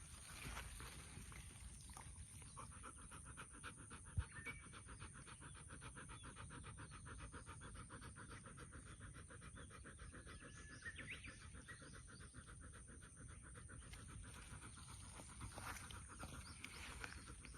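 A Labrador retriever panting fast and faintly, starting a couple of seconds in and stopping near the end. There is a single sharp click about four seconds in.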